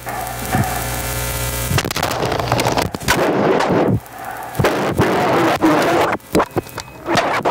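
Recyclable waste handled as an instrument: plastic packaging and paper crumpled and crinkled, with many sharp crackles and knocks. A steady humming drone with many overtones runs for the first two seconds, then cuts off.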